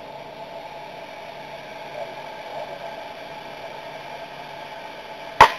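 A baseball bat striking a pitched ball: one sharp crack near the end, over a faint, steady background.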